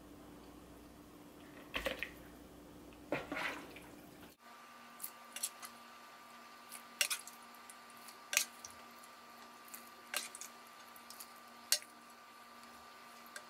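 Ladle scooping thick chili out of a pot and dropping it into a mixing bowl: a series of short, faint clinks and wet plops, a second or two apart.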